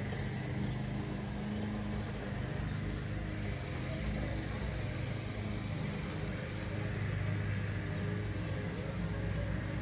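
Steady low engine hum, even in level throughout.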